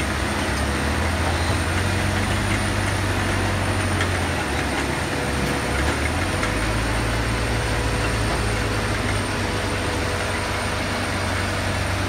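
Self-propelled squash harvester running as it moves slowly through the field: a steady low engine drone that shifts slightly in pitch about halfway through, with a thin steady whine above it.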